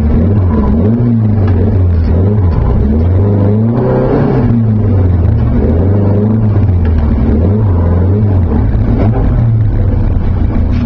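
Alfasud Sprint race car's flat-four engine heard from inside the cabin, idling with its pitch wandering up and down, and a throttle blip about four seconds in.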